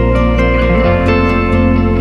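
Background music led by a plucked string instrument, with sustained notes and a steady low bass.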